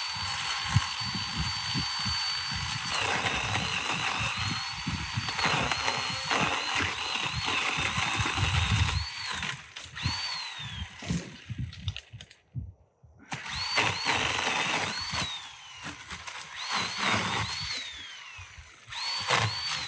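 Electric pole saw cutting branches: a steady high motor whine with the chain's sawing noise, the pitch sagging as it bites into the wood. In the second half it runs in short bursts, each ending in a falling whine as the trigger is released and the motor winds down.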